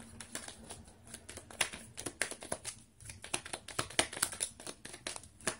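Tarot cards being handled and shuffled: a run of light, irregular clicks and flicks of card stock.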